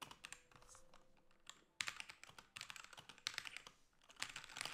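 Typing on a Magic-Refiner RK68 wireless mechanical keyboard: faint, quick runs of key clicks with a short pause about a second in.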